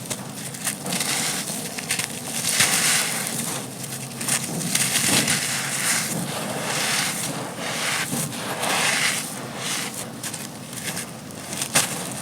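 Crispy, gritty sand-cement chunks crumbling and crunching in a dense, continuous crackle of small sharp snaps.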